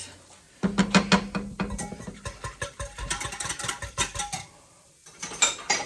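Kitchen dishes and utensils clinking and knocking in quick succession for a few seconds, then a short pause and a few more clinks near the end.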